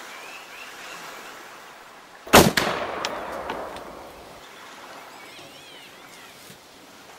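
A single rifle shot about two and a half seconds in: a sharp crack with a quick echo that dies away over about a second and a half, followed by a few faint clicks.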